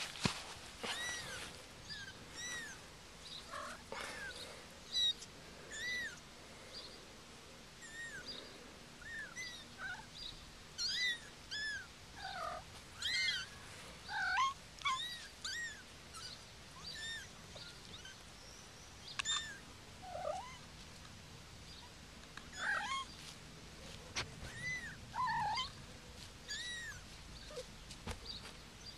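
Young kittens mewing: many short, high calls that rise and fall in pitch, one after another with brief gaps, some overlapping.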